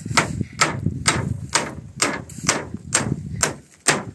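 Hammer nailing thin wooden roof boards, with about nine evenly paced strikes at roughly two a second.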